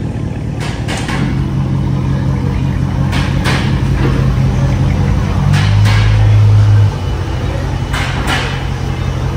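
Dodge Challenger R/T's 5.7-litre Hemi V8 running at low speed as the car creeps into a shop bay, a steady deep exhaust drone. The note deepens and grows louder for about a second and a half past the middle, then drops back suddenly.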